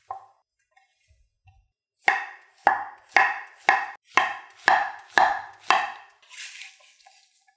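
Chef's knife slicing a peeled banana on a wooden cutting board: eight crisp knocks of the blade on the board, about two a second, starting about two seconds in. A short soft scrape follows as the blade slides under the slices to scoop them up.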